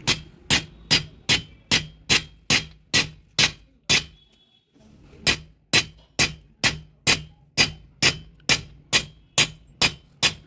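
Steady hammer blows on a steel drift, driving valve guides into a diesel engine cylinder head, about two and a half strikes a second with a pause of about a second near the middle.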